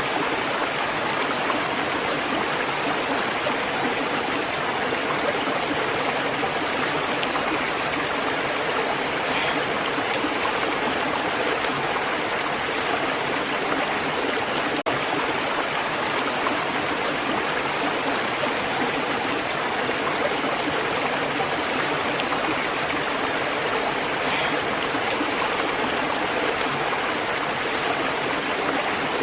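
Steady running water, an even continuous rush that does not change, with a split-second gap about halfway through.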